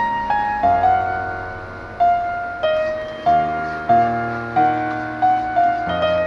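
Background music: a slow piano melody, single notes struck about every half second and left to fade.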